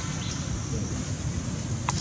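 Steady outdoor background noise: a low rumble with a hiss over it, and one short sharp click near the end.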